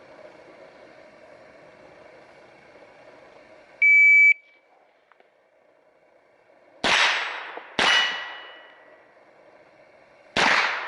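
Shot timer start beep, a short steady high tone about four seconds in, then three shots from an AR rifle fitted with a .22LR conversion kit: the first two about a second apart and the third about two and a half seconds later. A brief ringing tone follows the second shot.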